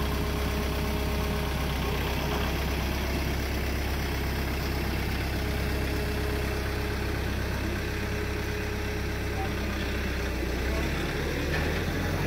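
Kubota M5660 farm tractor's diesel engine running steadily as the tractor drives away, a low even drone.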